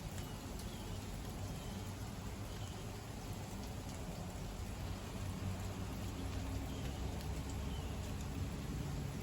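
Steady heavy rain falling in a thunderstorm, a little louder in the second half.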